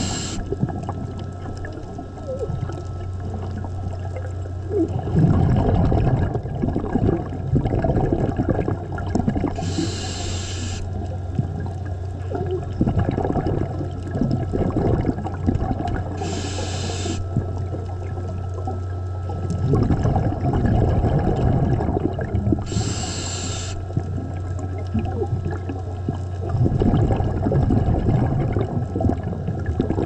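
Scuba diver breathing through a regulator underwater: a short hiss on each inhale, three times about six and a half seconds apart, each followed by a long bubbling rush of exhaled air. A steady low hum runs underneath.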